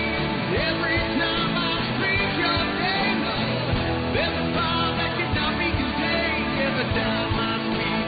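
Intro music: a song with singing over a full band.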